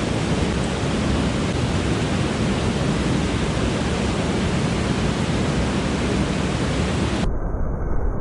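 Mountain stream water rushing steadily, a loud even hiss with no break; about seven seconds in the sound turns duller.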